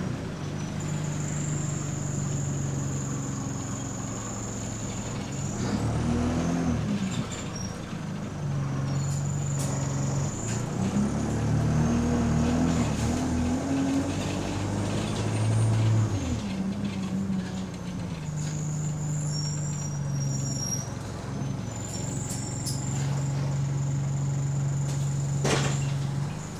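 Bus diesel engine and running gear heard from inside the bus as it idles and pulls away, the engine note rising in pitch twice as it accelerates. Over it runs a thin high whine that comes and goes, which the uploader takes to be the air conditioning. A short sharp noise comes near the end.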